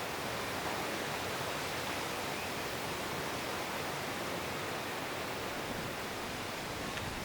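Wind blowing steadily: an even rushing noise with no let-up.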